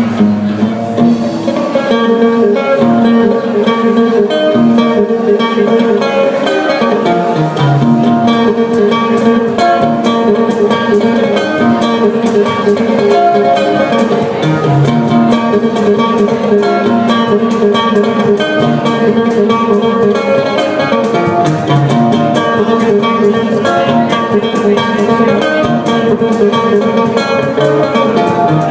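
Acoustic guitar playing an instrumental passage of a song, picked and strummed chords changing every couple of seconds.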